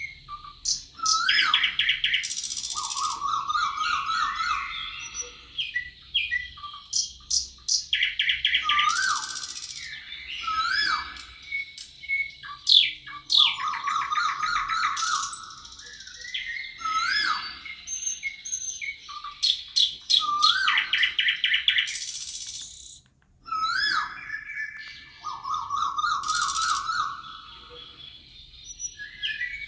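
Several songbirds singing together: chirps, quick trills and short rising whistled notes mixed with buzzy high phrases. A similar run of phrases comes back about every six seconds.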